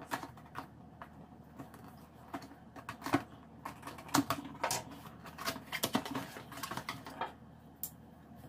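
Cardboard box being cut and opened by hand: irregular scratchy clicks and scrapes of the tape and lid being slit, then the cardboard flaps pulled open.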